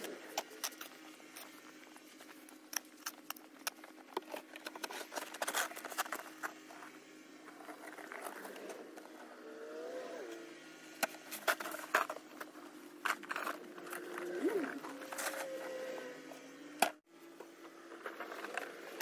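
Snow shovel scraping and crunching through fresh snow in a run of short, irregular strokes and knocks.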